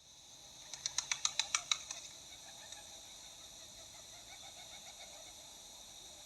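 A quick even run of about ten sharp claps, roughly eight a second, about a second in: a rock pigeon's wing tips slapping together on the upstrokes as it takes off. Under and after it a steady high hiss of insects.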